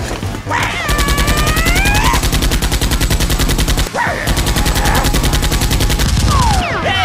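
Rapid automatic gunfire in two long bursts, with a brief break about four seconds in.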